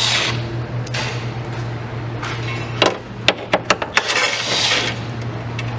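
Shop work on a car: tools clinking and knocking on metal a few times, with two spells of hiss and a steady low hum underneath.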